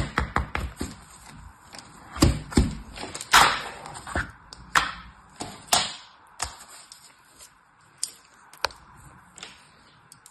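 Hard plastic sand molds packed with kinetic sand, tapped and knocked on a tabletop and lifted off the moulded sand. A run of quick taps at the start, several louder knocks in the middle, then sparse single taps.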